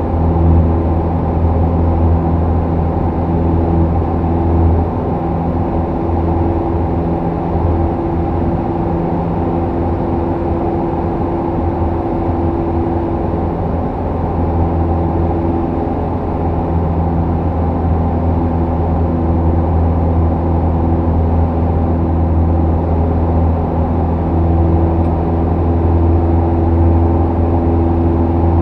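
Single-engine light airplane's piston engine and propeller running through the end of the takeoff run and the initial climb, heard from inside the cockpit as a loud, steady drone.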